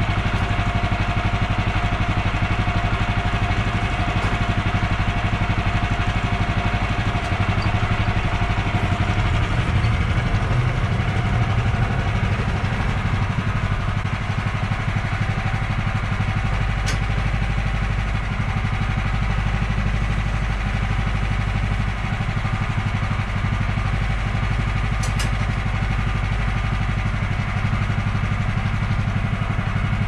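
Woodland Mills HM130 portable bandsaw mill running: its gas engine runs steadily while the band blade saws through a log. The engine note shifts slightly about halfway through.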